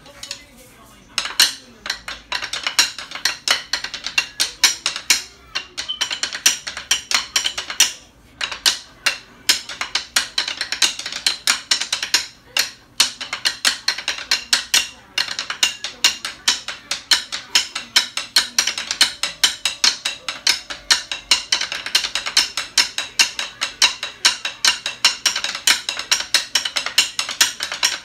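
Two drummers playing drumline cadences with drumsticks: fast, crisp stick strokes in a steady marching rhythm, broken by a few short pauses between passages.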